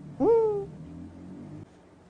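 A single short, high-pitched closed-mouth hum, a savouring "mm!" from someone eating, that swoops up sharply and then slowly falls.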